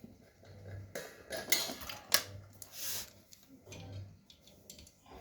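Small metal tools and fittings being handled: scattered light clinks, clicks and brief scrapes, with a short hiss-like rustle about three seconds in.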